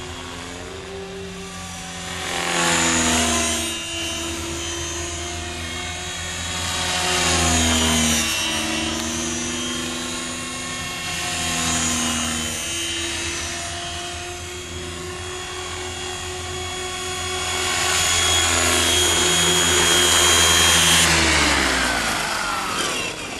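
Compass Atom 500 electric RC helicopter flying, its motor whine and rotor blade noise shifting in pitch and swelling louder and quieter as it manoeuvres, loudest as it comes close near the end. Just before the end the whine slides down in pitch as it comes down onto the grass.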